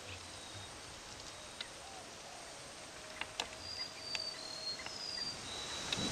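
Faint outdoor ambience: a low steady hiss with a few soft clicks and several short, high chirps in the second half.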